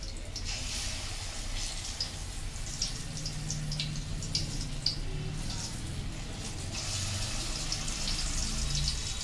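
Hot oil sizzling in a wok as batter-coated chana dal and jaggery balls deep-fry, with many small crackles.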